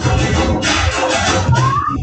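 Bollywood garba dance music playing with a steady, strong beat. Near the end there is a short rising sweep in the track.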